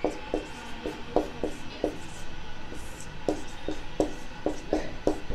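Marker pen writing on a whiteboard: an irregular run of short strokes and taps as words are written out by hand.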